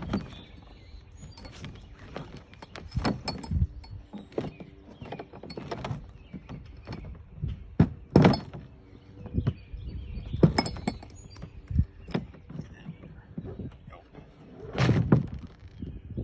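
Folding kayak's hull and lever-and-slat fasteners being worked into place by hand: irregular knocks, clacks and thunks, with the sharpest a little past eight seconds in and a heavier thump near the end.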